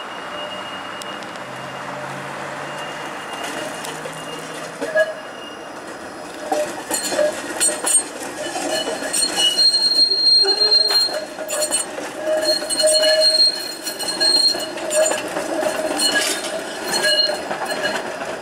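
Flexity Outlook streetcar moving through a tight loop curve, steady running noise at first. From about five seconds in its steel wheels squeal against the rails in wavering high-pitched squeals that come and go in loud spells.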